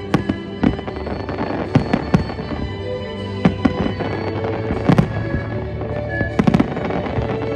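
Fireworks bursting: sharp bangs at uneven intervals, roughly one every second, with a quick run of several bangs near the end. Music plays underneath.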